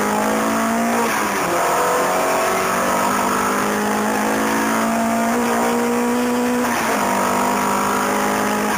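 Car engine heard from inside the cabin under hard acceleration on track, its note climbing steadily through the revs, with two upshifts where the pitch drops sharply and climbs again: one about a second and a half in, the other after about seven seconds.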